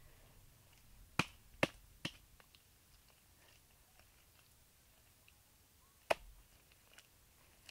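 Short sharp knocks: three in quick succession about a second in, and one more about six seconds in, over faint background.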